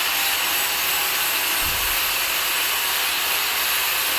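4-inch (AG4) handheld angle grinder grinding the outside of a steel pipe, a steady grinding of the disc on the metal. There is a short low bump a little under two seconds in.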